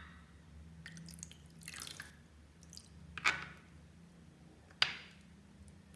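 A plastic spoon stirs a watery liquid in a glass dish, giving a few small splashes and drips. The two loudest come about three and five seconds in.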